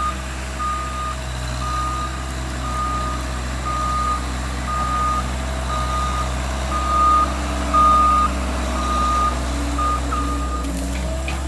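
Skid steer's backup alarm beeping about once a second over the steady hum of its engine, the sign that the machine is reversing; the beeping stops near the end.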